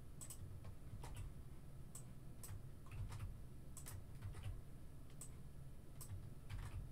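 Scattered clicks of a computer keyboard and mouse, irregular and a few a second, over a low steady hum.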